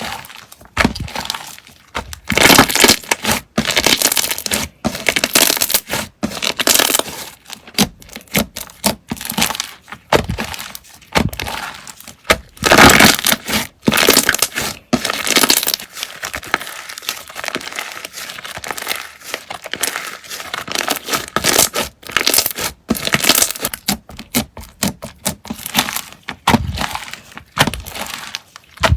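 Slime being pressed and squeezed by hand, giving irregular bursts of crackling and crunching that come in quick clusters with short pauses between.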